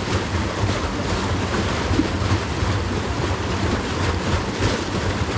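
Wind buffeting the microphone outdoors: a loud, uneven low rumble over a steady rushing hiss.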